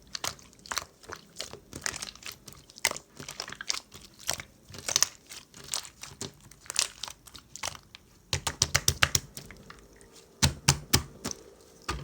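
Keyboard typing: irregular clicky keystrokes with some heavier taps, including a fast run of rapid keystrokes past the middle and a few harder key presses near the end.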